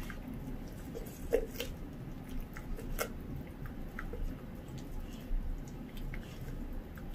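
Dachshund chewing and tearing at a whole raw duck: wet squishing bites with scattered sharp crunches, the loudest about a second and a half in and another about three seconds in. Underneath is the steady low hum of an air purifier.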